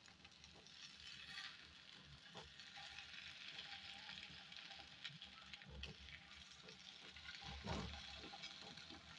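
Faint sizzle of beaten eggs frying in a little oil over low heat in a nonstick pan, with soft scrapes and taps of a silicone spatula breaking them up. One louder scrape comes about two-thirds of the way in.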